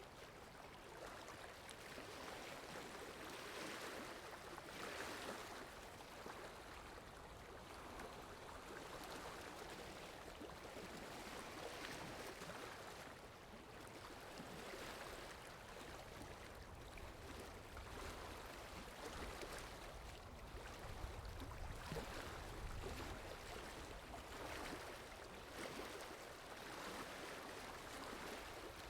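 Faint washing of sea water that swells and falls every few seconds, with a low rumble joining in the second half.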